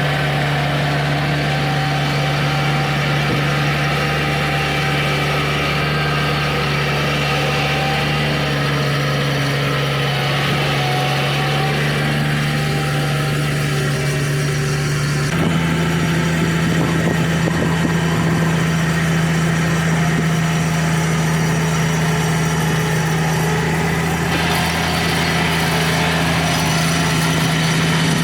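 An engine running steadily at a low idle. About halfway through it steps up slightly in speed and holds there.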